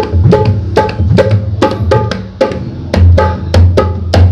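Dholak played by hand in a quick steady rhythm: sharp slaps on the treble head over deep booms from the bass head, some of which bend upward in pitch. The bass booms grow heavier about three seconds in.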